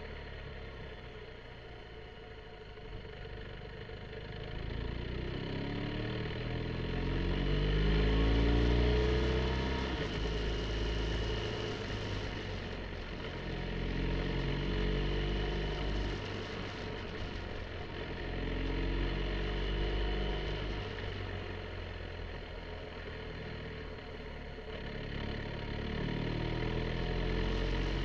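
BMW R1250 GSA boxer-twin engine pulling hard through the bends: its pitch rises in several sweeps through the gears and drops back as the throttle closes, over a steady rush of wind and road noise.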